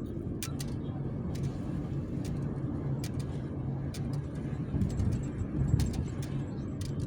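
Car cabin noise while driving: a steady low rumble of road and engine, with scattered light clicks.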